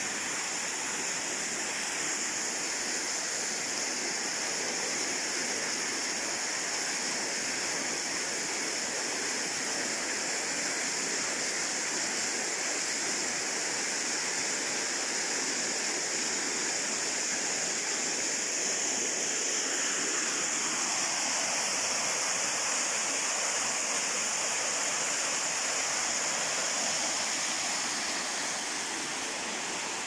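Waterfall: white water rushing over a granite rock cascade, a steady rush whose deeper part thins out about two-thirds of the way through.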